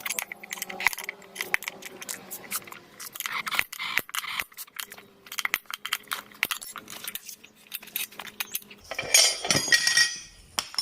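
Hand tools clinking and tapping on a motorcycle wheel as the tyre is worked off the rim: many sharp metallic clicks, with a louder rough scraping about nine seconds in. Faint background music underneath.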